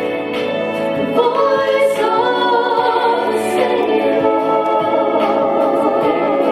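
Gospel music: an instrumental passage with sustained, wavering melody notes swelling in about a second in over a steady accompaniment.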